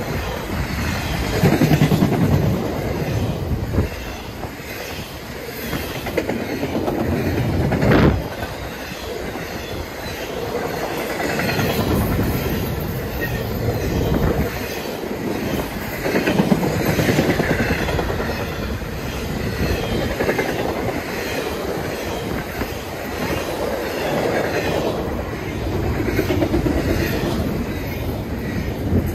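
Intermodal freight cars rolling past at close range, their steel wheels clattering over the rail joints with some wheel squeal. One sharp bang partway through.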